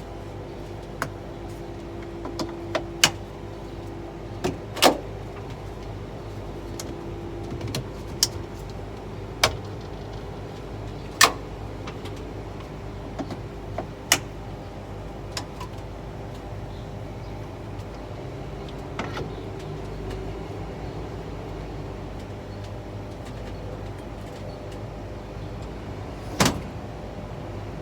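Scania tractor unit's engine idling steadily, with a dozen or so sharp metallic clicks and clanks at irregular intervals as the suzie air and electrical lines are coupled between the unit and the trailer.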